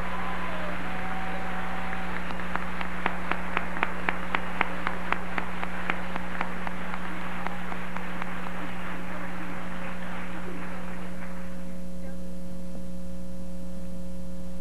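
Audience applauding, with a few sharp claps standing out at about four a second for several seconds. The applause dies away about twelve seconds in, leaving a steady electrical hum.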